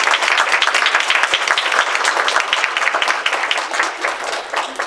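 Audience applauding: many hands clapping densely, thinning out and fading near the end.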